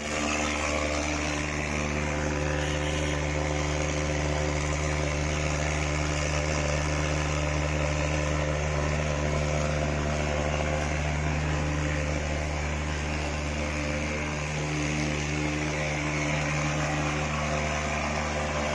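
Truck-mounted Vectorfog pulse-jet thermal fogging machine running while it sprays insecticide fog, a steady drone of even pitch.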